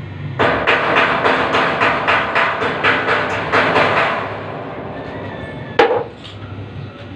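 Small hammer tapping rapidly on metal at a steel barrel bolt being fitted to a stainless-steel gate, about four or five blows a second for nearly four seconds. About two seconds later comes one harder single blow.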